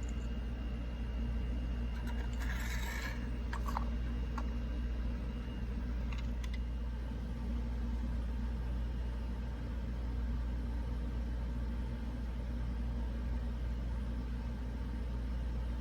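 Steady low electrical hum, with a short rustle and a few faint clicks in the first few seconds and a couple more about six seconds in.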